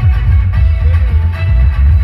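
Loud dance music with a heavy bass beat, played through the stage loudspeakers.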